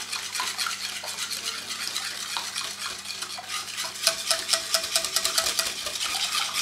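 Metal wire whisk beating a liquid chocolate-and-milk mixture in a glass dish, the wires clicking and scraping against the glass. About four seconds in the strokes quicken into a fast, even run of sharper clicks.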